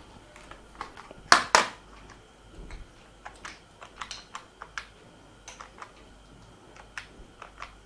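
Keys pressed on a handheld calculator while a sum is worked out: short light clicks at an irregular pace, with two louder clicks close together about a second and a half in.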